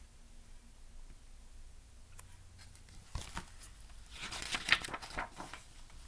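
Pages of a picture book being handled and turned: a light click about three seconds in, then a second or so of paper rustling and flapping.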